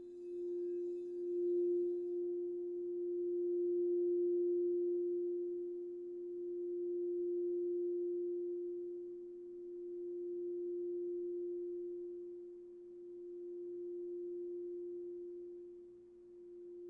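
Crystal singing bowl sounding one steady low tone with a fainter tone just below it, swelling and fading in slow waves every few seconds. The mallet works at the rim for the first couple of seconds, and after that the bowl rings on by itself.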